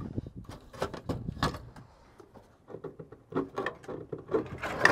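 Irregular metallic clicks and knocks from handling a heavy steel truck door on a 1987 Ford F-350 while it is being removed, with a run of softer, duller knocks and rattles in the second half.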